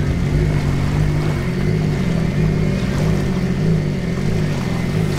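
An engine idling steadily, a low drone whose pitch wavers slightly.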